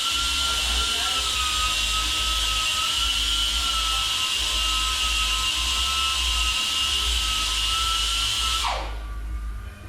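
A high-speed power tool running with a steady high-pitched whine and hiss, then switched off and winding down, its pitch falling, near the end.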